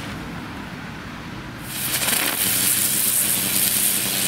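Small Category 1 'Geisterstunde' ground firework hissing as it sprays green sparks. After a quieter lull, the hiss starts up strongly about one and a half seconds in.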